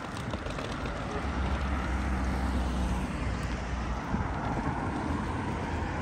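A car driving by on the street, a steady traffic noise that slowly grows louder, with wind rumbling on the microphone from about a second in until about four seconds.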